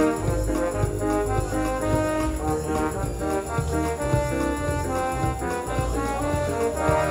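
Accordion music with an orchestral, brass-like sound: held chords that change every second or so over a pulsing bass.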